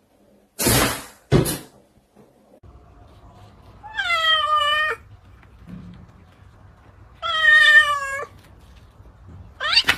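An animal calling twice, each a drawn-out call of about a second that sinks slightly in pitch, about three seconds apart. Two short noisy bursts come near the start, and a short rising call comes at the very end.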